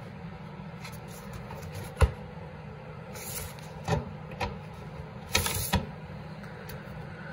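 Plastic snowmobile oil reservoir being handled and worked into its mount by hand, with a sharp knock about two seconds in, a few lighter clicks, and brief scraping rustles around five seconds, over a steady low hum.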